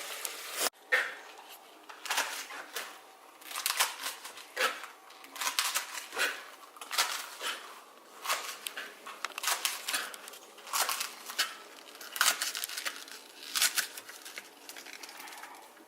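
Collard greens being handled: a run of short, irregular crinkling and tearing rustles.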